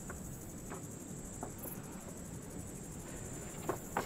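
Steady, high chirring of crickets in the dry scrub, with a few short, soft crinkles of a paper document being handled, two of them near the end.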